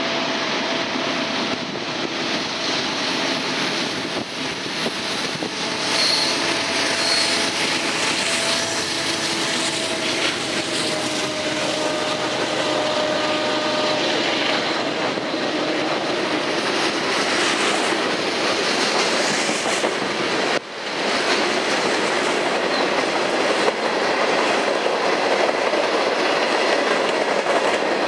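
A CN freight train passing close below: its diesel locomotives go by in the first part, then a long string of covered hoppers, tank cars and boxcars rolls past, with wheels clattering over the rail joints in a loud, steady rumble.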